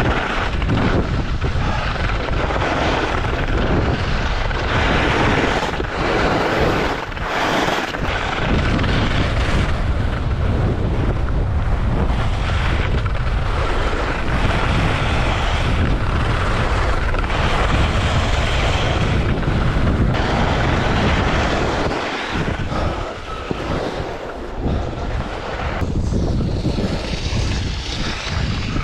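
Wind buffeting an action camera's microphone: loud, steady wind noise, heavy in the low end, easing briefly about seven seconds in and again for a few seconds near the end.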